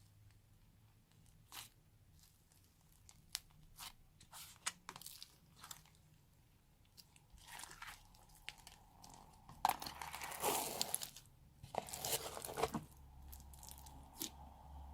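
Crunchy slime being squished and mixed by hand, crackling and popping. There are scattered single pops at first, then denser bursts of crunching from about halfway through.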